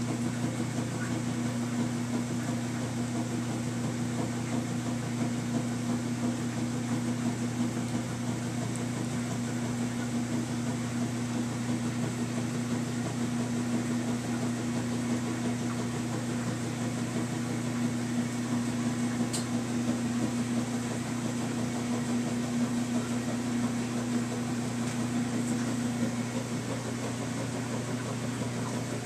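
Steady machine hum with a low droning tone, like a fan or air-conditioning unit running in a small room. A single faint tick about two-thirds of the way through.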